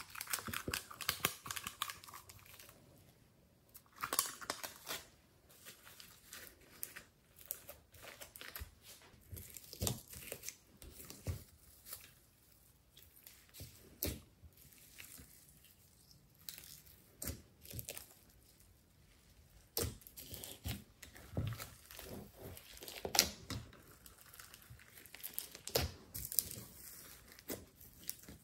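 Glossy slime mixed with clay and foam beads being folded, pressed and squeezed by hand in a glass dish: irregular sticky crackling and popping.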